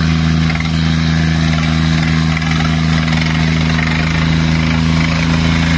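Sonalika DI-35 tractor's diesel engine running steadily at an unchanging speed.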